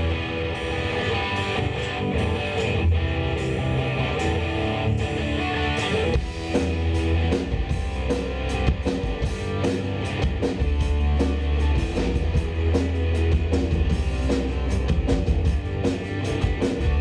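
Live rock band playing the instrumental opening of a song: electric guitar, bass guitar and drum kit, with a heavy low bass line under a steady drumbeat and no vocals yet.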